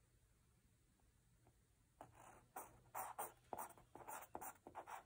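Pen writing on paper, a quick run of short scratchy strokes starting about two seconds in, after a near-silent start.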